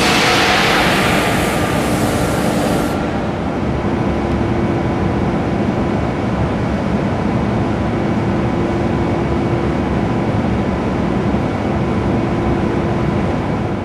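Steady loud factory machinery noise: a dense rumble with faint steady hums, and a hissing swell in the first two seconds. The sound changes in character about three seconds in.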